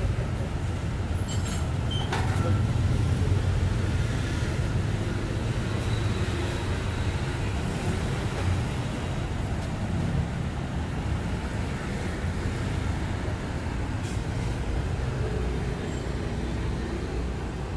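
City street traffic: a steady rumble of passing vehicles, with a couple of short clicks about two seconds in.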